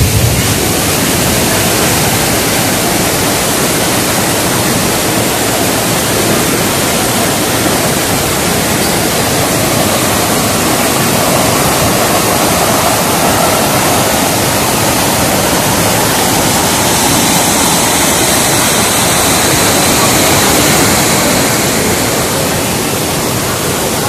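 Waterfall in full flow: a steady, loud rush of falling water.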